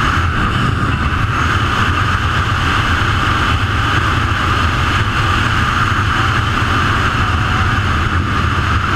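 ATV engine running at a steady cruising speed, with a constant rush of wind and road noise and no change in pitch or level.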